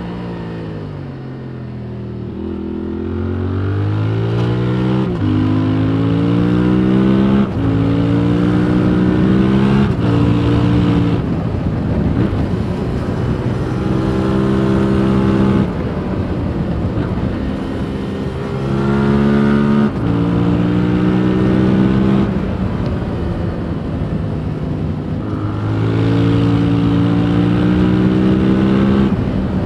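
2021 Yamaha MT-07's parallel-twin engine through its stock exhaust, heard from the rider's seat. It slows at first, then accelerates hard through three quick upshifts in the first ten seconds. After that the throttle is held, eased off and opened up again several times.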